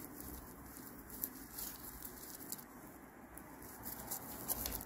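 Faint rustling and crinkling of raffia yarn being worked with a crochet hook, with a few small scattered clicks.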